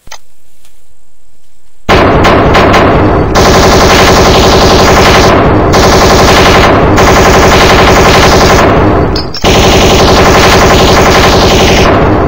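Long, loud bursts of rapid automatic machine-gun fire, starting about two seconds in, with a brief break near the end. The fire cuts off abruptly.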